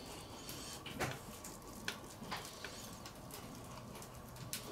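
Kitchen knife slicing through a slab of minced pork, the blade tapping the wooden board in a few sharp clicks, the loudest about a second in, over a faint steady hum.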